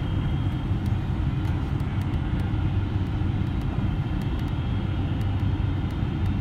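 Cabin noise of a Boeing 777-300ER on its landing approach, heard from a window seat beside its GE90 engine: a steady low rumble of engine and airflow.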